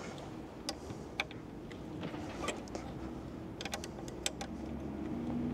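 Scattered light clicks and taps of a plastic syringe being handled while topping up a motorcycle's rear brake fluid reservoir, with a quick run of them about three and a half to four seconds in, over a low steady background hum.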